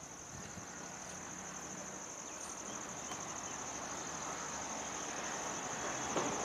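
Insects chirring steadily at a high pitch, while the rumble of an approaching pair of ALCo diesel locomotives slowly grows louder.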